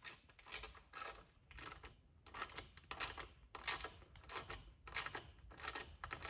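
Hand ratchet clicking in short back-and-forth strokes, about three a second, as a crankcase cover bolt is run in to draw the cover down onto its dowels.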